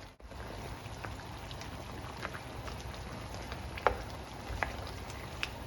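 Pot of pork caldereta stew bubbling on the stove: a steady low hiss with scattered small pops, the sharpest about four seconds in.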